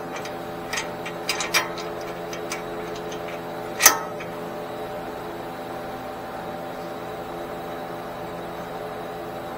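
Metal hand tools clicking and clinking against metal during suspension work: a few light clicks in the first two and a half seconds, then one sharp clack about four seconds in. A steady machine hum runs underneath.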